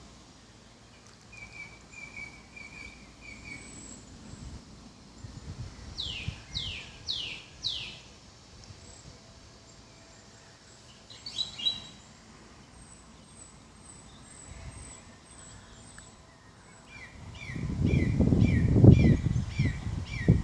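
Wild birds singing, several different songs in turn: a short run of repeated notes, three loud downward-sweeping whistles a few seconds in, a thin series of very high notes midway, and a quick run of falling notes near the end. A loud low rumbling noise comes in over the last three seconds.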